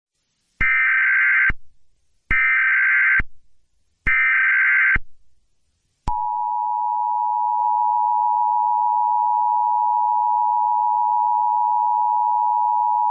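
Emergency Alert System activation: three short bursts of screeching SAME digital header data, each about a second long and a second apart. About six seconds in, the steady two-tone EAS attention signal (853 and 960 Hz) starts and holds.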